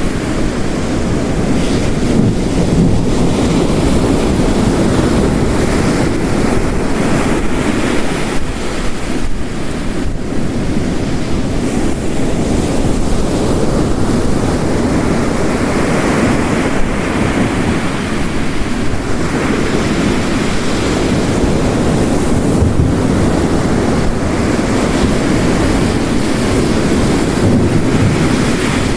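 Storm ambience of heavy rain and ocean waves crashing on a rocky coast: a loud, dense, steady rush that swells and eases as the waves break.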